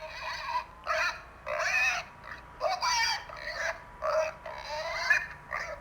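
Pigs squealing in a run of about seven short, pitched calls, each lasting well under a second.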